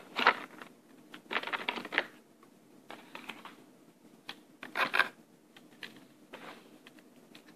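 Scattered short rustles and clicks of hands handling objects close to the microphone, loudest about 1.5 s and 5 s in.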